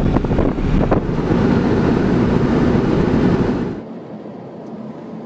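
Car driving at road speed: a loud rumble of road and wind noise buffeting the microphone. A little under four seconds in it drops suddenly to the much quieter steady hum of the car's cabin.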